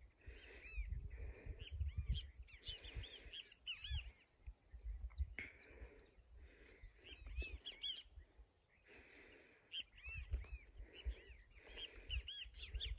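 Birds calling in repeated clusters of short, arched, chirping notes, over a low gusting rumble of wind on the microphone.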